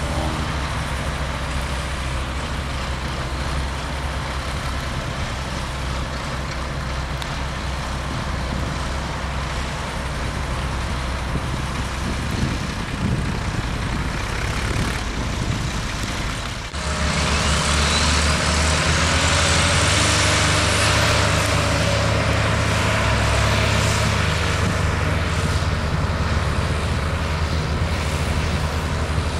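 Diesel engine of a large articulated four-wheel-drive tractor running steadily, hitched to a reversible plough. About two-thirds of the way through it changes abruptly to a louder, heavier engine note as the tractor pulls the plough, with a high whistle rising in pitch for a few seconds.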